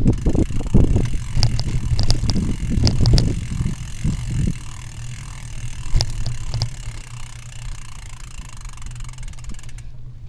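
Rumble and wind buffeting from a camera mounted on a vehicle travelling over a rough dirt and gravel track, with sharp rattles and clicks as it jolts over the bumps. The rumble eases about halfway through.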